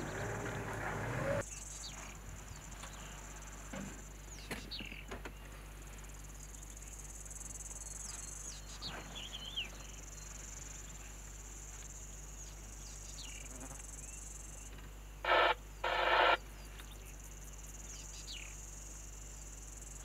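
Steady high-pitched chirring of grassland insects, with faint scattered bird chirps. A low rumble stops about a second and a half in. A little past the middle come two short, loud pitched calls about half a second apart.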